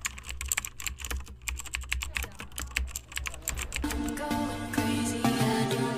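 Rapid, irregular keyboard-typing clicks, a sound effect for text being typed out letter by letter, over a low hum. About four seconds in, the clicks give way to music with a steady pitched melody.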